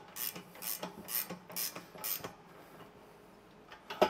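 A 17 mm spanner tightening a nylon-insert lock nut on a compressor wheel axle, a rasping stroke about twice a second, about five strokes, that stops about two seconds in. A sharp click follows near the end.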